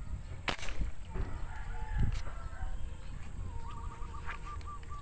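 A chicken clucking in a quick run of about seven short notes near the end. Before it, a sharp snap about half a second in and a dull thump around two seconds in.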